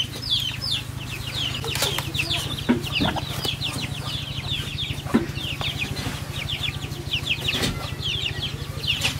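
Birds chirping: a steady stream of short, high chirps, each sliding downward, several a second, over a steady low hum.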